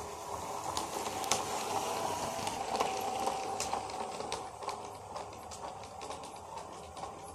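LGB G-scale model steam locomotive running on brass track: a steady hum from its electric motor and gearing, with irregular light clicks and rattles from the wheels on the rails. It is loudest as it passes close by in the first few seconds.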